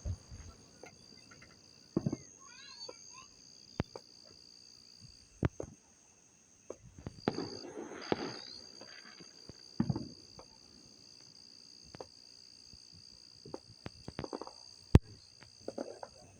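Steady high-pitched chirring of insects, with a series of separate firework bangs a second or more apart and a longer crackling burst about seven seconds in; the sharpest bang comes near the end.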